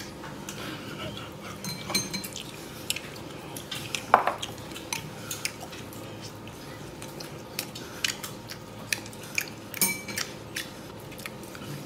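Chopsticks clicking and clinking against a porcelain bowl while picking up meat: irregular sharp ticks, a few of them ringing briefly.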